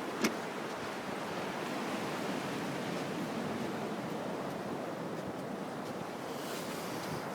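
Ocean surf washing steadily on a beach, a continuous rushing noise, with a single sharp click just after the start.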